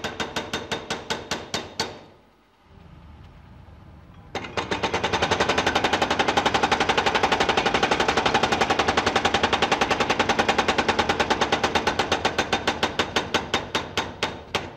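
Mechanical file-cutting machine's chisel hammering teeth into a steel file blank, making rapid, evenly spaced metallic strikes several times a second. This is the second cut, laid at an angle across the overcut to make a cross-cut file. The strikes stop about two seconds in, leaving a faint low background, and start again louder a little past four seconds.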